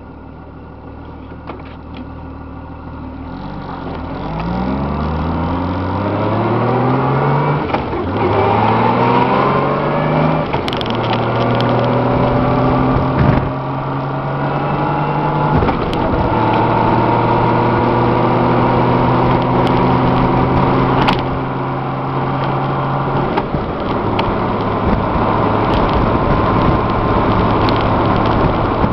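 Honda GL1500 Gold Wing's flat-six engine accelerating through several upshifts, its pitch climbing in each gear over the first ten seconds or so, then running at a steady cruise with wind and road noise. The rider is listening for noise from new Kenda Kruze tires.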